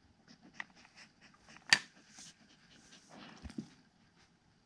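Siberian husky sniffing and breathing at a plastic Trixie Activity Flip Board treat puzzle, with light clicks and knocks from its plastic pieces. One sharp click, a little under two seconds in, is the loudest sound.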